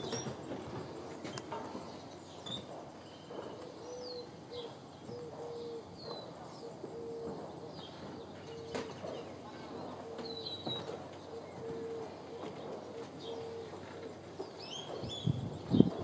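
A dove cooing a long run of short, evenly spaced low notes, with small birds chirping now and then. Footsteps on wooden boards come in near the end.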